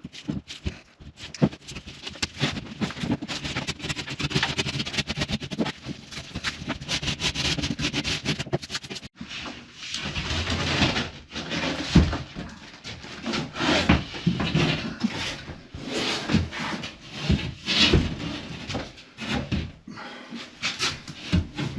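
Scraping and knocking from work on a drywall panel. For about the first nine seconds there are rapid scraping strokes, then slower, irregular scrapes and knocks.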